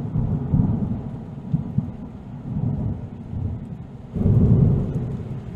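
Rolling thunder: a deep rumble that eases off and then swells again about four seconds in.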